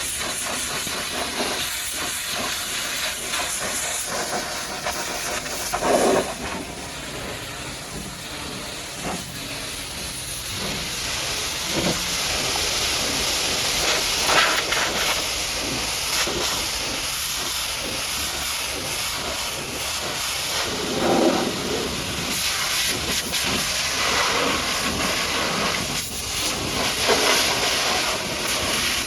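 Pressure washer jet spraying onto a muddy truck: a steady hiss of high-pressure water with a few brief, louder surges.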